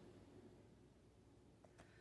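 Near silence: room tone with two faint soft ticks near the end.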